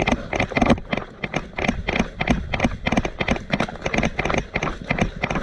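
Running footsteps on the ground, a steady rhythm of about three to four thuds a second.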